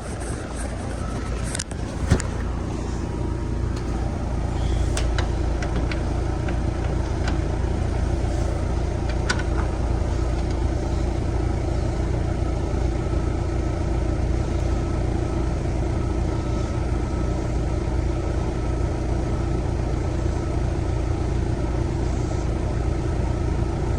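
Rudd split-system outdoor condensing unit running with a steady low hum and a faint steady tone above it. A single sharp knock comes about two seconds in.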